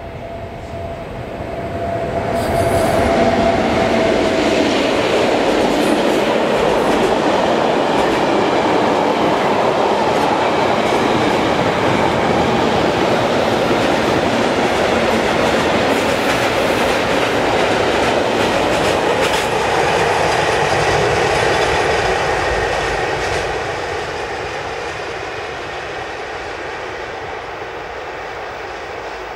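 Long freight train of tank and covered wagons rolling past close by: the rumble and clatter of wheels on rail swells in over the first few seconds, holds steady for about twenty seconds, then fades as the last wagons move away.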